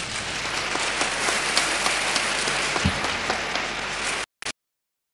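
Audience applauding as a live guitar piece ends, a dense crackle of many hands clapping. The applause cuts off abruptly a little over four seconds in.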